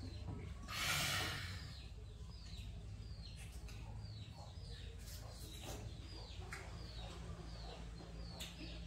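Repeated short bird chirps, each sliding downward in pitch, about two a second, over a steady low hum. A brief noisy burst comes about a second in and is the loudest moment.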